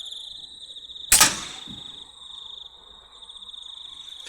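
A single air rifle shot about a second in, a sharp crack that is the loudest sound, over steady cricket chirring.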